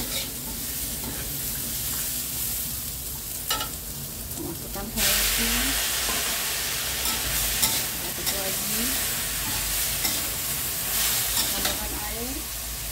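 Cut long beans stir-frying in hot oil in a stainless steel wok, a spatula scraping and clicking against the pan. About five seconds in, the sizzle jumps abruptly louder as pieces of boiled chicken wing go into the oil, and the stirring goes on.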